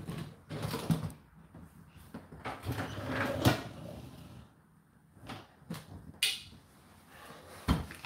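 Whirlpool dishwasher's upper rack sliding out on its rails, its load of bowls and utensils rattling. Scattered clicks follow, then a sharp knock near the end.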